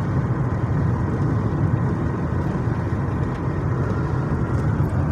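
Steady road and engine rumble heard from inside a car's cabin while driving on a wet highway in the rain.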